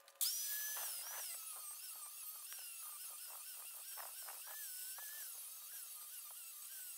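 Angle grinder grinding into a steel tube, starting abruptly with a high whine whose pitch wavers and dips as the disc bites into the metal.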